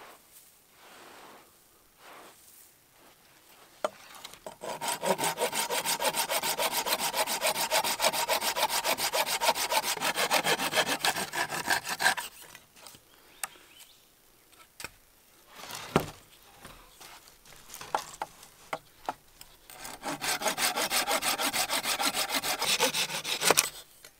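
Folding pruning saw cutting through a dead branch in two bouts of quick back-and-forth strokes, the first about seven seconds long and the second about four. Between the bouts there are scattered light knocks and handling, with one sharper knock midway.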